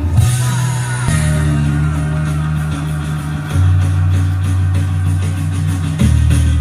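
Recorded music with no vocals: long, heavy bass notes changing every few seconds, with guitar and drums above, played back loud through a vintage Trio KA-2600 solid-state amplifier and its speakers.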